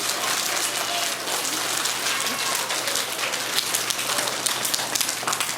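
Audience of children applauding, a dense, steady patter of many hands clapping.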